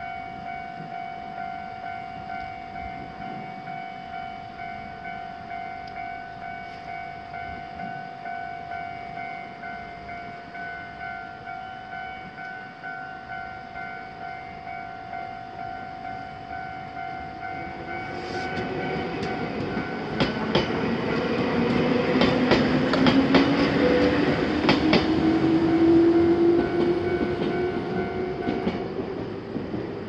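Japanese level-crossing alarm bell ringing steadily in an even, rapid pulse. About 18 seconds in, a Ryutetsu Nagareyama Line electric train arrives and passes over the crossing, growing loud, with wheel clicks over the rail joints and a rising motor whine. The bell stops shortly before the end as the barriers lift, signalling that the crossing is clear.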